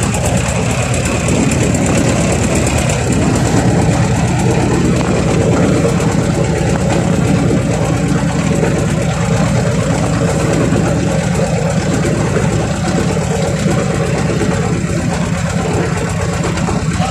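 Small wooden river boat's engine running steadily at cruising speed, loud and even with a fast, regular pulse.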